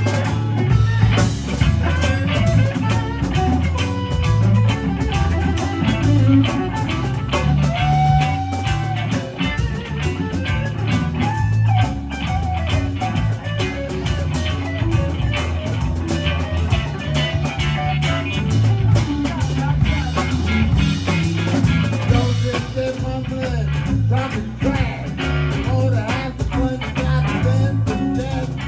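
Live blues band playing a jam, with guitar out front over a pulsing bass line and a steady beat.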